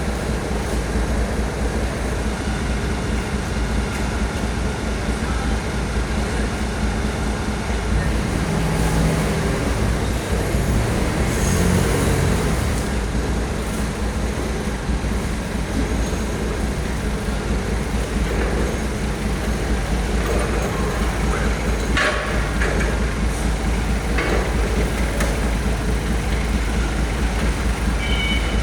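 Steady low rumble of a heavy vehicle's engine running amid traffic noise, with a few sharp clicks about three-quarters through and a beeping tone starting right at the end.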